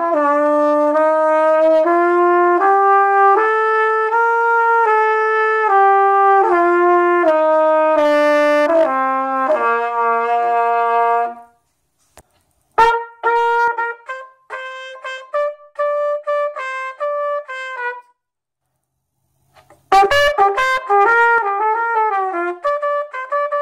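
A solo brass instrument plays the B-flat concert scale, one octave up and back down in even held notes, ending about eleven seconds in. After a short pause it plays a run of short detached notes, and near the end a quicker passage of slurred notes.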